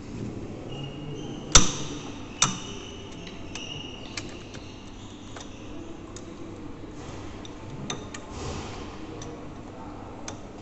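Socket ratchet wrench loosening the bolts of a lathe's gap bed, metal on metal. Two sharp metallic clacks come about one and a half and two and a half seconds in, followed by scattered light clicking from the ratchet.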